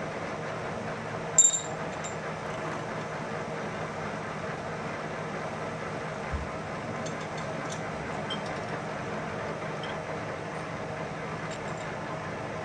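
Metal lathe running steadily, its spindle turning a wheel while a twist drill in the tailstock drill chuck bores into its centre. A single sharp metallic clink rings out about a second and a half in.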